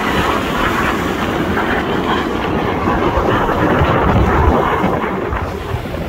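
Engine noise from display jets passing over, a steady rushing noise, slightly louder about four seconds in, with wind buffeting the microphone.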